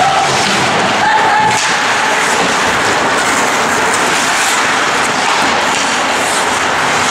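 Ice hockey rink noise during play: a steady dense hiss of the arena with scattered spectator voices, and a few brief high scrapes of skates on the ice.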